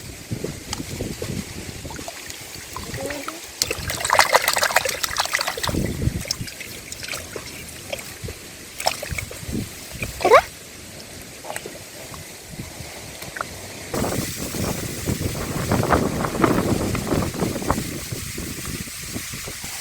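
Hands sloshing and splashing in shallow muddy water, irregular and on and off, with busier stretches about four seconds in and again from about fourteen seconds. A single short rising squeak cuts in about ten seconds in.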